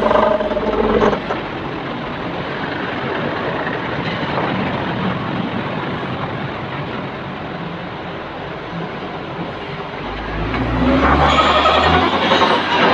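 Heavy diesel vehicles running at a gravel yard: dump trucks driving past, then the engine of a Komatsu WA350 wheel loader growing louder as it comes close, from about ten seconds in.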